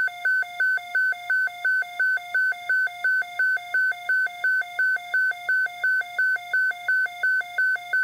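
Weather-radio emergency alert tone: a loud electronic beep repeating evenly, about three beeps a second, signalling that an EAS alert is being received.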